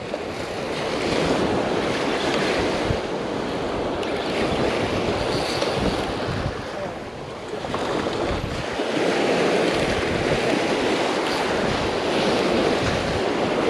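Surf breaking and washing onto the beach, with wind buffeting the microphone: a steady rush of noise that dips briefly about seven seconds in.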